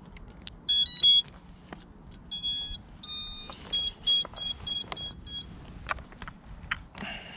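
Eachine Twig 115 quadcopter's brushless motors sounding their ESC startup tones as the battery is connected: a quick run of stepped notes about a second in, then two longer tones, then a row of short beeps.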